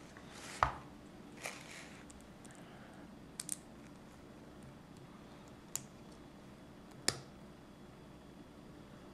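Small plastic LEGO pieces clicking and tapping as they are handled and pressed together: a handful of short, separate sharp clicks, the loudest just over half a second in and a quick double click about three and a half seconds in.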